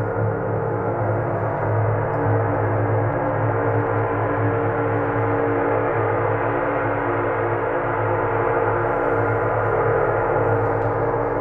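Large gong played with a mallet, sounding as one dense, sustained wash of many overlapping tones that holds at a steady level with no single strike standing out.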